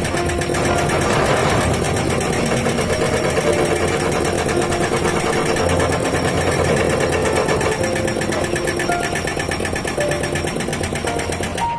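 Excavator-mounted hydraulic rock breaker hammering continuously, a very fast, steady run of blows.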